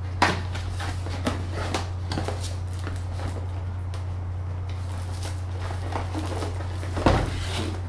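Plastic shrink-wrap crinkling and a cardboard box being handled and opened: scattered rustles and crackles, with a louder rustle about seven seconds in, over a steady low hum.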